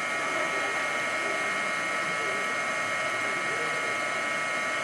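A steady, even hum of several high held tones over a hiss, with faint distant voices underneath.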